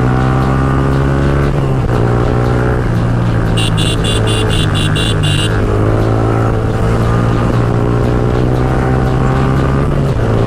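Yamaha R15M's single-cylinder engine running under way, its note breaking off briefly about two seconds in and then climbing slowly through the second half as the bike accelerates. A rapid high beeping, about five pulses a second, sounds for about two seconds near the middle.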